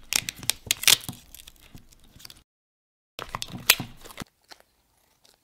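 Patterned duct tape being pulled off its roll and torn: a run of sharp ripping crackles, then after a brief break a second, shorter run.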